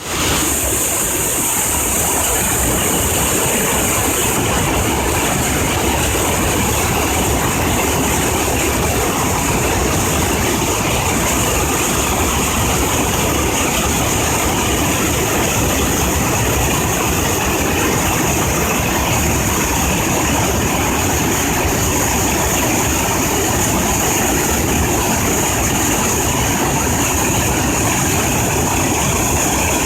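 Rushing water of the Taki no Hai waterfall pouring over rock: a loud, steady, even rush with no breaks.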